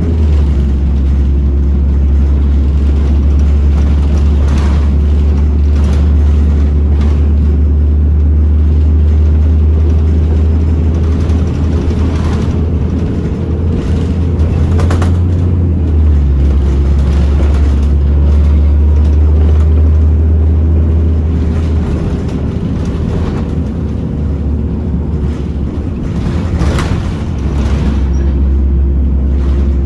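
Interior sound of a Bredamenarinibus M240 LS city bus under way: its engine and drivetrain running with a steady low rumble and a faint whine, shifting in pitch about halfway through and easing off for a few seconds near the end, with occasional rattles.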